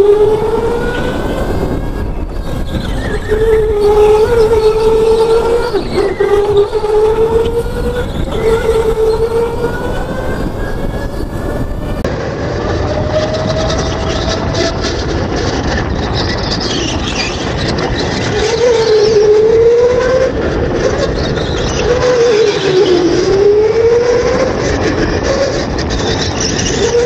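Electric go-kart's motor whining under a steady rushing noise, the pitch rising as it accelerates and dropping as it slows for corners, twice sweeping down and back up near the end.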